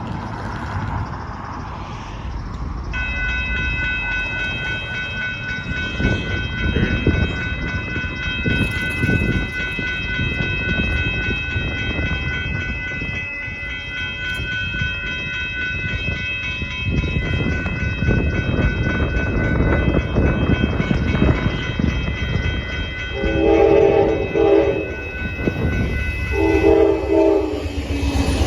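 Amtrak Texas Eagle passenger train passing close by, its locomotive and wheels rumbling and clattering over the rails, with a steady high ringing tone from about three seconds in. Near the end the locomotive horn sounds two short chord blasts, about three seconds apart.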